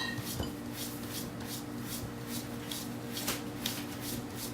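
A series of short, soft scratching or rubbing strokes at an uneven pace of about two a second, over a steady low hum.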